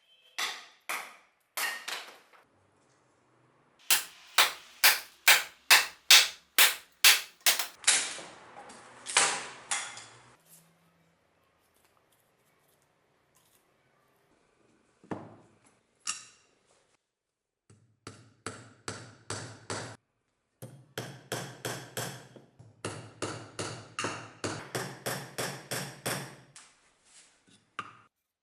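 Restored axe chopping wood in test strikes: runs of sharp, quick blows, about two to three a second. There is a long pause in the middle, then a longer run of blows near the end.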